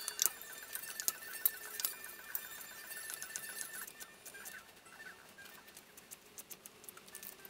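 Hands mixing diced hash-brown potatoes with egg in a stainless steel bowl: scattered light clicks and taps of the potatoes and fingers against the bowl.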